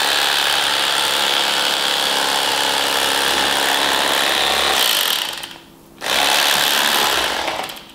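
Electric fillet knife running with a steady buzz as its blades saw through goose breast. It stops about five seconds in, starts again a moment later, and stops again near the end.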